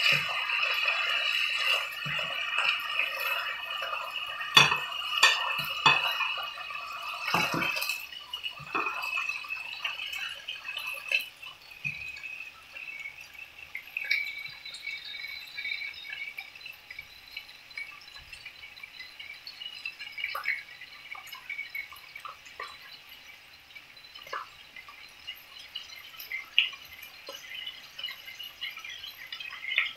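Striploin steaks sizzling in hot oil in a frying pan, with a fork clinking against the pan as the steaks are turned during the first several seconds. After about eight seconds the sizzle settles to a quieter crackle with scattered pops of spitting fat.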